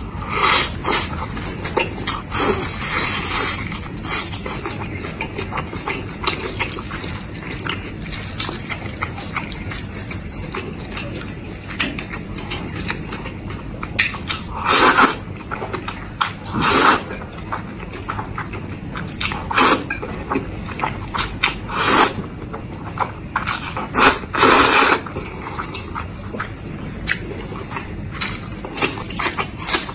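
Close-miked mukbang eating of instant noodles: steady wet chewing, with several loud noodle slurps in the second half and bites of crisp green vegetable stalks.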